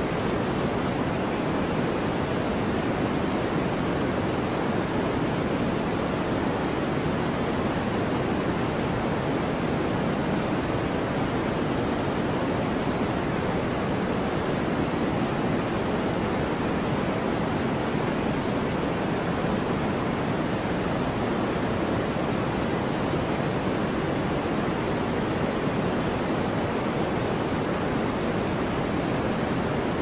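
Steady synthetic noise of the white-noise kind used for sleep, even and unchanging, with more weight in the low and middle range than in the highs.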